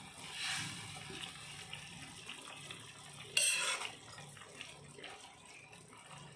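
A steel ladle stirring cut okra through a thin tamarind gravy in a non-stick kadai: soft sloshing and scraping, with one louder stroke about three and a half seconds in.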